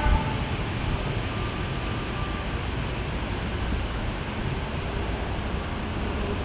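Wind buffeting the microphone over the faint sound of a distant diesel passenger train approaching. The tail of a locomotive horn blast cuts off just at the start.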